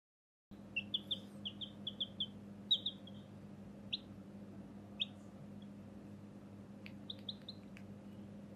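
Baby chicken chick peeping: a quick run of short, high peeps, then single peeps a second or so apart and a short run of three or four near the end. A steady low hum runs underneath.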